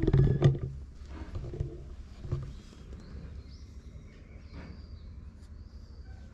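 A cat purring as a steady low rumble while it is stroked, with knocks from handling the camera: a loud one about half a second in and smaller ones near one and a half and two and a half seconds.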